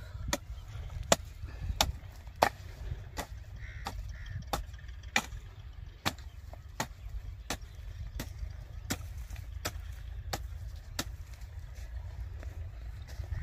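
Broad-bladed hand hoe chopping into dry, cloddy soil in a steady rhythm, about three sharp strikes every two seconds, over a low rumble.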